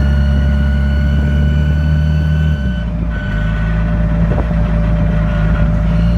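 Car engine running at slightly raised revs, then easing back down about two and a half seconds in and holding there. A thin, steady high whine sits over the engine note.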